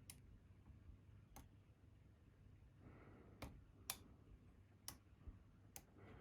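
Faint, sharp metallic clicks of a lock pick working the pins of an Abus 83/45 padlock under tension, about six at irregular intervals.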